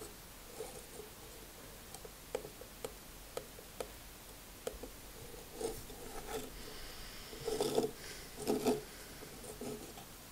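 Lego plastic bricks being handled: light scattered clicks and short rubbing scrapes as parts of a brick-built puzzle box are pressed and slid, with a few denser bursts of rubbing in the second half. A faint steady high tone is heard for about a second and a half midway.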